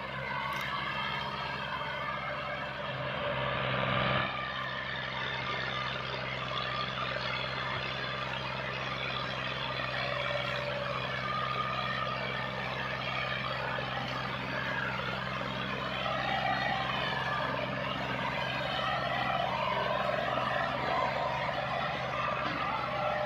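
Two Massey Ferguson diesel tractors, an MF 260 and an MF 240, working hard in tandem to pull a heavily loaded trolley. The engines give a steady low drone under load, with wavering higher tones as the revs shift, and swell louder briefly about four seconds in.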